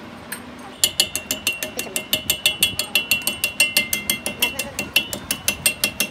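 Rapid metal-on-metal taps, about five or six a second, starting about a second in, each with a short bright ring from the steel shaft: a chipping hammer pecking slag off a fresh weld joining two axle shaft halves.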